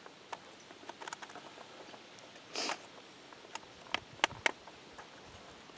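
A foil pie-plate leech trap handled and turned in the hands, giving scattered sharp clicks and crinkles. There is one short rustle about halfway through and a few louder clicks soon after.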